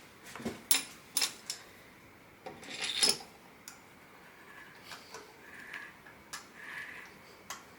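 Small metal tools and parts being handled on a workbench: a few sharp clinks and knocks, a short scrape about three seconds in, then fainter clicks.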